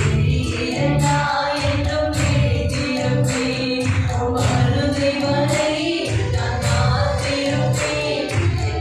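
Tamil Christian worship song: voices singing over instrumental backing with a steady beat of bass and percussion.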